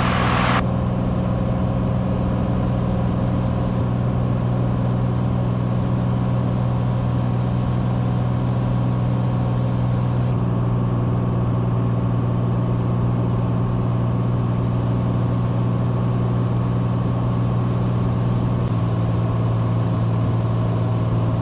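Cessna 182's piston engine and propeller droning steadily in the cockpit, with a slight shift in pitch near the end.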